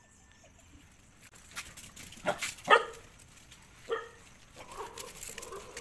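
Street dogs barking at one another in a standoff: a few sharp barks about two seconds in, the loudest just after, another near four seconds, then a run of quieter barks.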